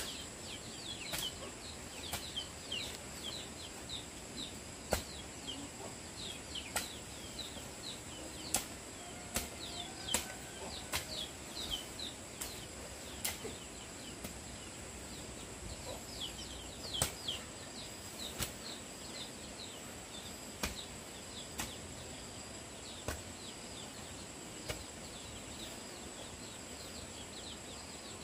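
Small birds chirping with quick, downward-sliding calls over a steady high-pitched insect drone, broken by sharp clicks or taps every second or two.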